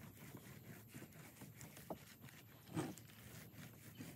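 Faint, irregular knocks and taps on a plywood (OSB) roof deck while bonding adhesive is rolled on with a long-handled roller, with one louder thud about three seconds in.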